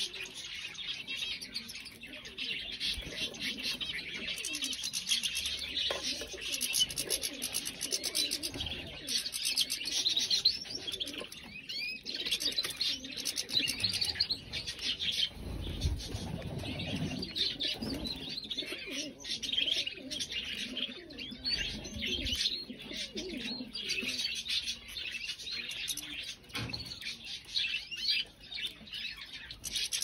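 Several domestic canaries singing and chirping at once, a dense, continuous chatter of trills and twitters. A brief flutter of wings comes around the middle.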